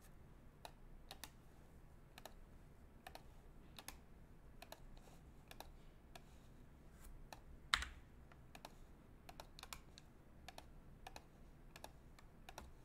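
Faint, irregular clicking of a computer keyboard, a few keystrokes a second, with one louder click about eight seconds in.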